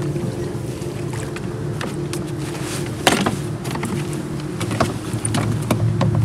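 Rowboat oar working in its metal oarlock, with irregular knocks and clicks, the loudest about three seconds in, over a steady low drone.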